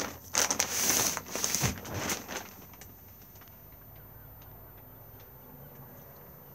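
Plastic bag crinkling and rustling as it is handled, in quick rough bursts for about two and a half seconds. Then it falls to quiet room tone with a few faint ticks.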